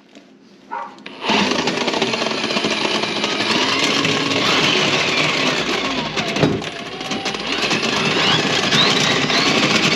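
Battery-powered Milwaukee drain snake starting about a second in and running steadily, its motor whirring and the cable rattling in the drum.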